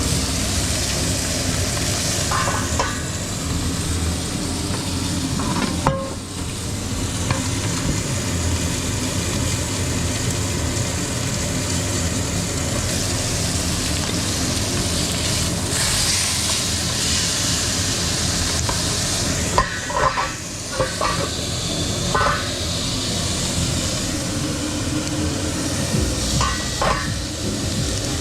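Thick bone-in chuletón steak searing in a hot pan, a steady sizzle, with a few short clinks and knocks here and there.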